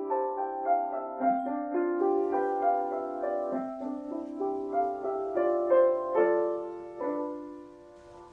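Piano introduction to a choir anthem: slow, held chords changing every half second or so, growing quieter near the end.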